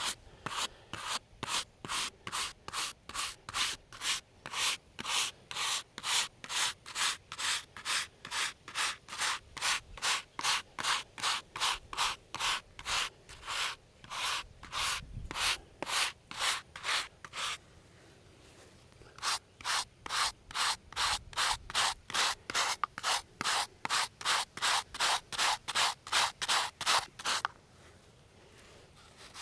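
Hand brush scrubbing a headstone pre-treated with headstone cleaner, in steady back-and-forth strokes of about two to three a second. The strokes break briefly about two-thirds of the way through, resume, and stop shortly before the end.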